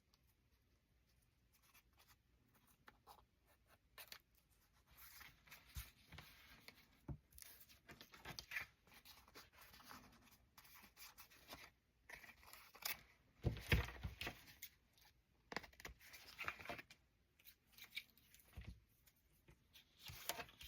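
Faint rustling, scraping and light taps of paper and cardstock being handled and positioned, with a few sharper clicks and scrapes in the middle and a quieter first few seconds.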